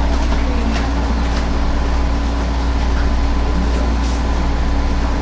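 Steady low rumble, with a faint steady high tone and a few faint clicks.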